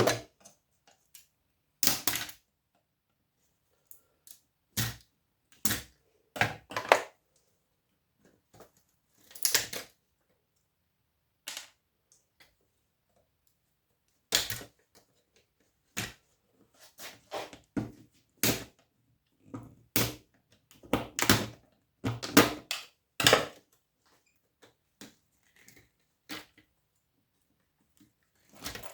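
Irregular clicks and knocks of metal parts and tools as power-supply circuit boards are pulled apart by hand for scrap, with quiet gaps between and a busier run of knocks in the second half.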